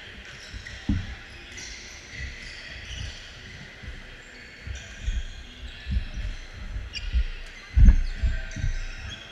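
Badminton players' shoes thumping and squeaking on a hardwood gym floor during a rally, with a few sharp clicks; the heaviest thump comes near the end.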